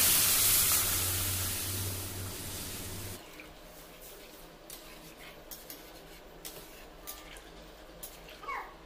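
Water poured into a hot kadai of frying potatoes and taro with spices and oil, hissing loudly and fading until it cuts off abruptly about three seconds in; a few light clicks follow.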